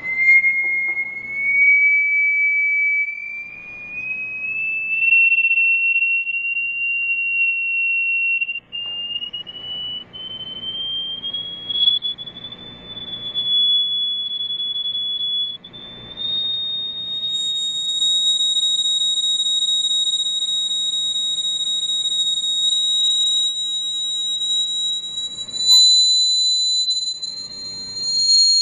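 A Chladni plate covered in sand, driven by a single high, pure tone that climbs slowly in small steps. As the pitch rises, the plate passes through new resonances and the sand re-forms into new standing-wave patterns. A faint gritty noise of sand jumping on the plate comes and goes underneath.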